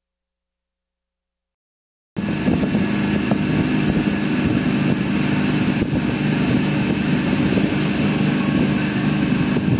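Silence for about two seconds, then a boat's engine running at a steady drone, cutting in abruptly, with wind noise and rushing water over it.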